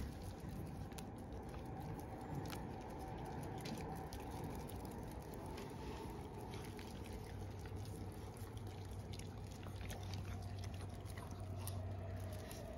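Yorkshire terriers chewing and licking, scattered small wet mouth clicks, over a steady low hum.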